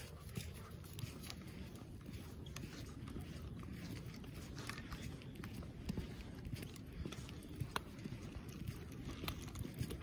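Footsteps crunching through fresh snow: irregular crisp crunches over a low rumble.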